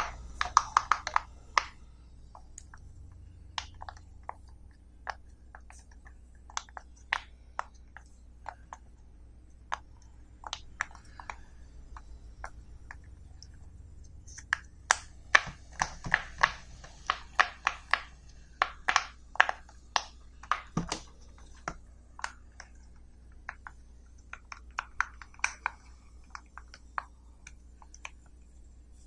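Silicone pop-it fidget toy bubbles being pressed through by fingers, making irregular sharp little pops. They come a few at a time at first, then in a quick run around the middle, then thin out again.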